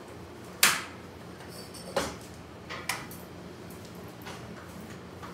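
A few sharp clacks and knocks from a hospital stretcher's side rails as they are lowered; the first, about two-thirds of a second in, is the loudest.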